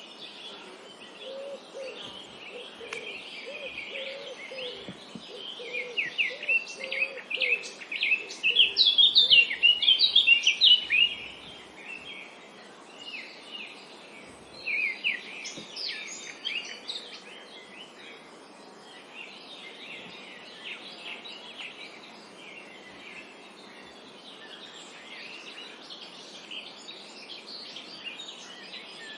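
Several small birds chirping and singing at once over a steady background hiss, busiest and loudest in the first ten seconds or so, then thinning to a fainter chorus. A lower wavering note runs underneath for about the first ten seconds.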